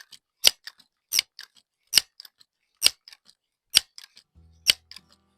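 Crosman 1322 multi-pump air gun being pumped: six sharp clacks of the pump lever, one about every 0.8 seconds, each followed by a couple of lighter clicks. Soft background music comes in near the end.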